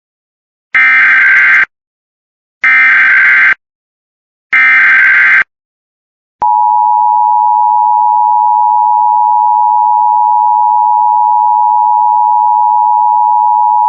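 Emergency Alert System broadcast opening with its SAME digital header: three short bursts of shrill data noise about a second each, a second apart. About six and a half seconds in comes the EAS two-tone attention signal, a steady dual tone that holds without change. Together they announce a child abduction emergency (Amber Alert).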